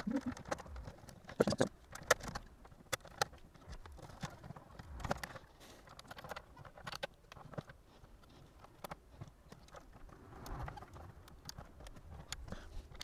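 Irregular light clicks and knocks of a small plastic kids' tablet being handled and reassembled by hand, thickest in the first few seconds.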